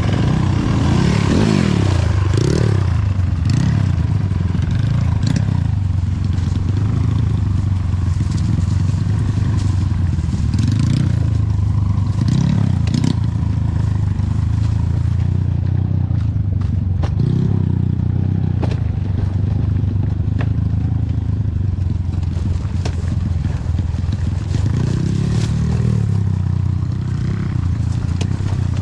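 Trail dirt bike engine running and revving up and down, with scattered clatter and knocks over rough ground.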